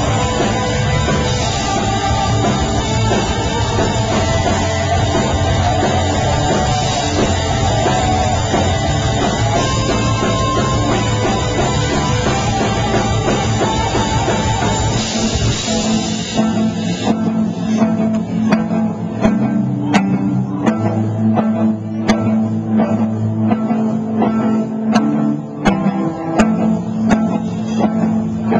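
Rock band playing guitar, bass and drums, loud and dense with cymbals. About two-thirds of the way in the cymbals and full drumming drop away, leaving sustained guitar notes with scattered sharp hits.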